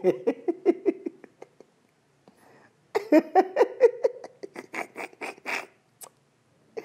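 A man laughing hard in two bouts of rapid ha-ha pulses, the second, longer bout starting after a pause of about a second and a half.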